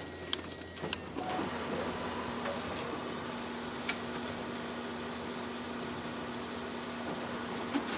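Office multifunction copier running a copy job, making one double-sided copy. There are a few clicks at first, then a steady mechanical whir with a low hum from about a second and a half in, and one sharp click about halfway through.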